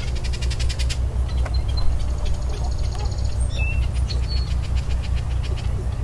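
Birds calling: a rapid run of high clicks in the first second, then a short buzzy call and a few brief chirps, over a steady low rumble.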